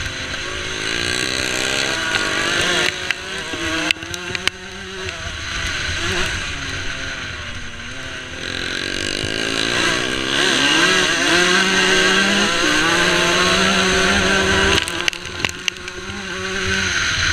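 125 cc two-stroke motocross bike engine racing, revving up and down through the gears with a rising and falling pitch, over wind rush on the microphone. A few sharp knocks and brief dips in level come about three seconds in and again near the end.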